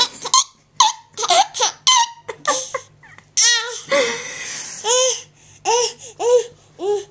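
Laughter: a baby laughing, ending in a run of short, high-pitched bursts that each rise and fall in pitch.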